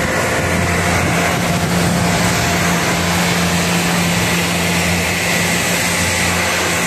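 Pressure washer running, its water jet hissing steadily as it sprays down into a rooftop package AC unit, over a steady low motor hum.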